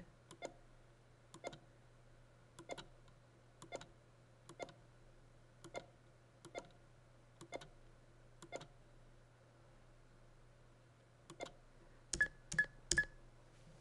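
Computer mouse clicking, about one click a second as points are placed around a shape in digitizing software, then a pause and a quicker, louder run of clicks near the end.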